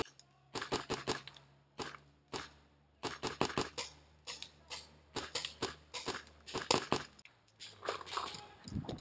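Irregular crunching and crackling of dry leaf litter and brush, a close run of short sharp crackles with brief gaps.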